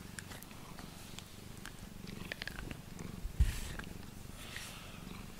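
Domestic cat purring close to the microphone while being petted, with light rustling of fur against the microphone and one louder soft knock about three and a half seconds in.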